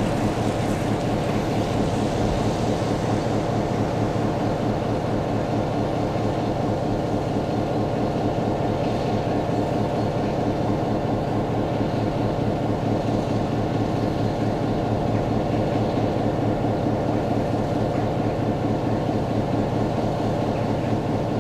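DSB class MY 1122 diesel-electric locomotive, a NOHAB-built unit with a two-stroke EMD 567 V16 engine, running steadily at idle while standing with its train.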